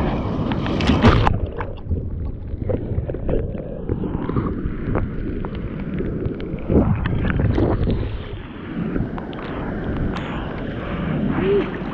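Seawater sloshing and splashing against a bodyboard and a camera held at the surface, with wind on the microphone. Louder splashes come about a second in and again around seven seconds in.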